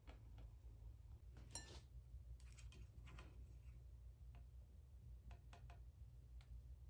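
Faint scattered clicks and light taps of a plastic slotted spatula against a ceramic bowl as poached scallops are set down one by one, the clearest tap about a second and a half in, over a low steady hum.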